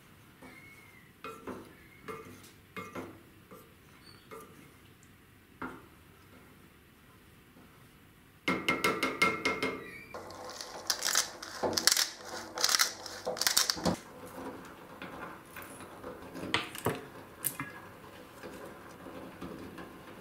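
Wooden spoon stirring and knocking against a small stainless steel pot of thick tomato meat sauce. There are scattered light clicks at first, then a quick run of strokes a little before halfway, followed by louder separate clatters on the pot.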